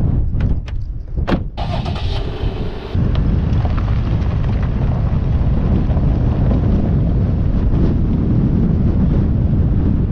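A few sharp clicks and a brief hiss. Then, from about three seconds in, a steady low rumble of a vehicle with wind buffeting the microphone.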